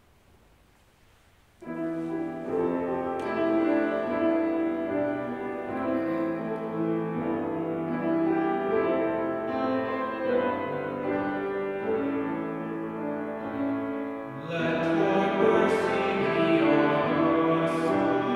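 Keyboard instrument playing slow, held chords: the introduction to the responsorial psalm after the first reading. It starts abruptly about a second and a half in, after near silence, and a cantor's singing voice joins about fourteen seconds in.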